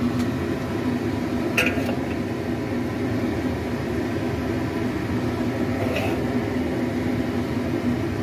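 Steady mechanical fan hum throughout, with a metal spoon clinking twice against a ceramic plate as cooked vegetables are spooned onto it.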